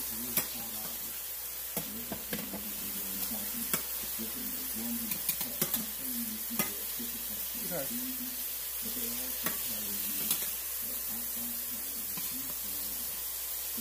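Turkey burgers and onions frying on low heat in a skillet: a steady sizzle with scattered sharp pops.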